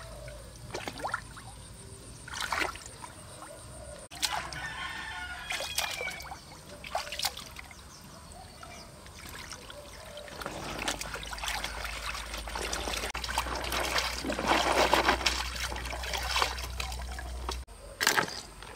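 Water trickling and sloshing, with scattered small splashes; the water sound grows louder in the second half, then stops short near the end.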